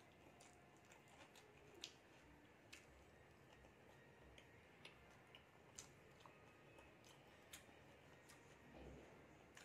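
Faint eating sounds from someone eating biryani with her fingers: scattered soft clicks and smacks of chewing, about one a second, over a low hiss.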